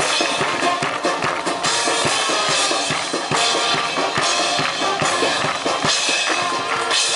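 Band playing an overture: drums, with bass drum and snare, beating steadily under held notes from pitched instruments.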